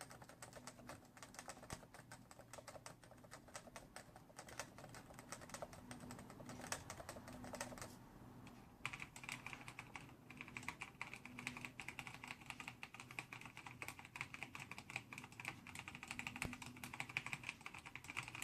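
Rapid typing on mechanical keyboards, a Razer board with Orange switches and a Cooler Master NovaTouch with Topre switches, keys clattering in quick succession. After a brief pause about eight seconds in, the typing goes on with a brighter, sharper click.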